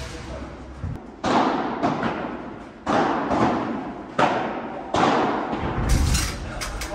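Padel rally: the ball is struck by solid padel rackets and bounces off the court and glass walls, giving sharp hits about once a second, each echoing on in the large hall, with a lower thud near the end.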